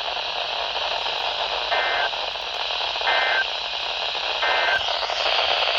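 Radio receiver hiss with three short bursts of Emergency Alert System digital data tones, each about a third of a second long and spaced about a second and a half apart: the SAME end-of-message signal that closes an alert.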